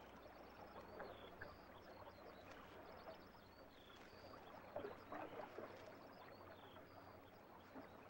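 Faint crackling rustle of dry reed stems as a mute swan works nest material with its bill, loudest about five seconds in, over faint high chirps of small birds.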